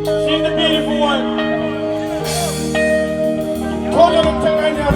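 Music with sustained chords, changing a couple of times, under a voice singing sliding, wavering vocal runs.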